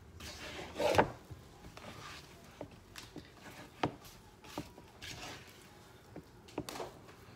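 Hands squeezing and kneading sticky, over-wet bread dough in a plastic mixing bowl: soft, irregular squelches and slaps, with a sharper knock about a second in.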